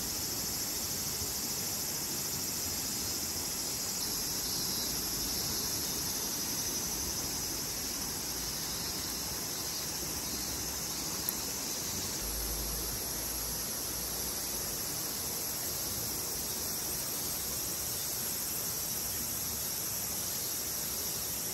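Steady, high-pitched chorus of summer insects droning without a break, over an even background hiss.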